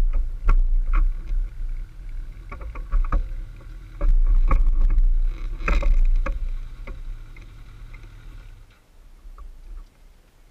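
Kawasaki ZX-14R's 1441 cc inline-four running at a standstill, a low rumble through the camera housing with scattered knocks and clicks. The rumble is strongest in the middle and dies away near the end.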